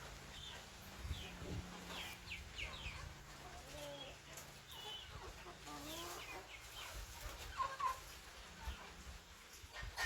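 Chickens clucking, with many short high chirps scattered throughout and lower, drawn-out clucks in the middle.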